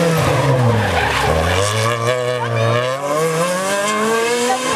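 Renault Clio rally car's engine passing at speed: the note falls as it goes by, then climbs steadily under hard acceleration away through the gears.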